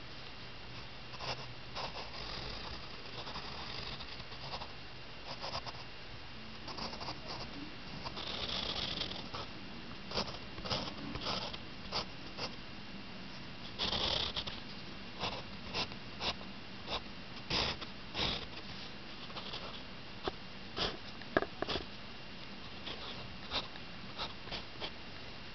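Pencil scratching on lined paper in many short, irregular strokes, with a few longer strokes, over a faint steady hiss.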